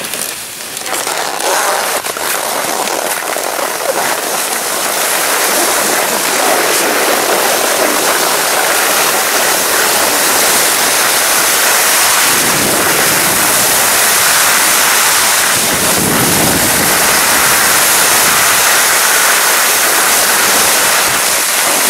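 Skis sliding down a groomed snow slope: a steady, loud hiss that builds over the first couple of seconds and then holds, with wind buffeting the microphone in two low rumbles about halfway through and again a few seconds later.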